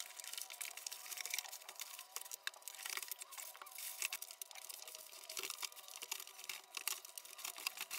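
Faint crinkling and rustling of plastic packaging film and cardboard as the sofa boxes are opened and their wrapped parts handled, an uneven run of small crackles and clicks.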